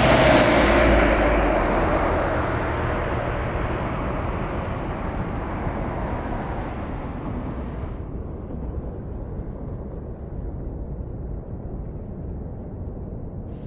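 Airbus A320 jet engines, loudest at the start as the aircraft goes by, then fading steadily into a distant rumble as the high hiss drops away.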